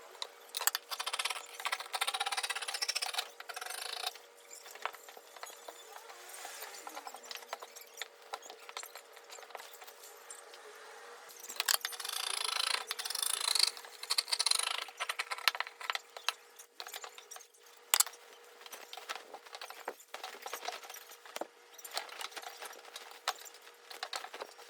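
Small handling noises: scattered clicks and light knocks, with two longer spells of rustling and scraping, one starting about a second in and another from about eleven to fifteen seconds in.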